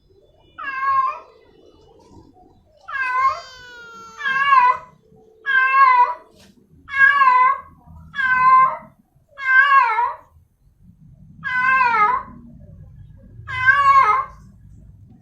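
Female domestic cat in heat calling for a male: a series of about nine loud, drawn-out meows, each with a bend in pitch, spaced one to two seconds apart.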